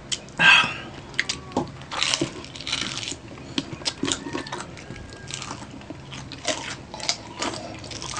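Eating crispy pata, deep-fried pork knuckle: crunchy bites and chewing. Scattered sharp clicks and clinks come at an irregular pace.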